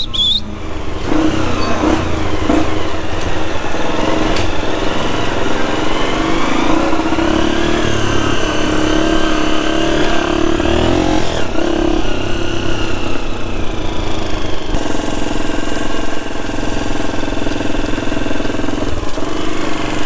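Small petrol engine of a farm bike running at low revs, its pitch rising and falling a little with the throttle as it creeps along at walking pace.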